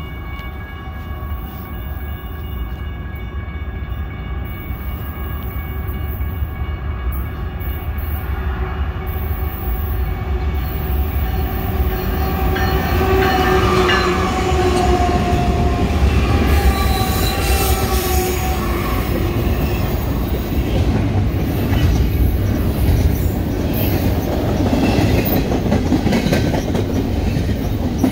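Intermodal freight train passing close by, growing louder through the first half and then holding a steady loud rumble of double-stack container cars rolling on the rails. In the first half there are steady tones over the rumble, which drop in pitch about halfway through.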